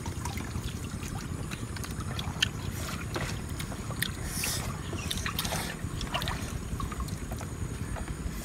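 Steady low rumble of wind on the microphone, with scattered small clicks and taps of hands eating from plastic plates; one sharper tap about two and a half seconds in.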